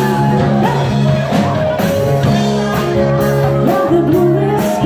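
A live rock band playing loudly: electric guitar and held notes over a steady drum beat, with a voice singing.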